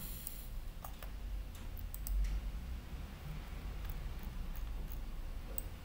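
A computer mouse clicking a few times at irregular intervals, over a low steady hum.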